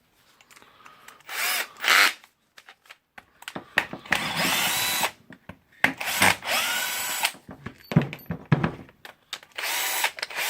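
Power drill unscrewing housing screws in four short bursts, its motor whine rising as it spins up each time.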